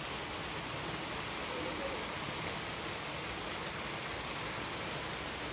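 Steady rushing background noise, even and unchanging, with a brief faint voice about a second and a half in.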